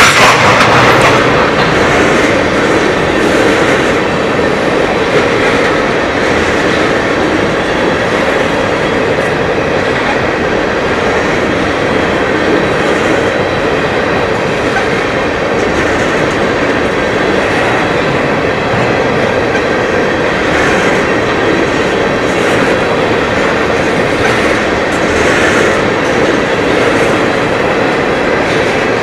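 Freight train tank cars rolling past close by: a steady rumble and clatter of steel wheels on rail, a little louder in the first second.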